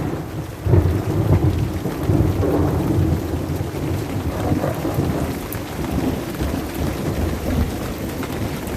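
Thunder from a lightning strike, a low rolling rumble that swells about a second in and slowly fades, over steady rain.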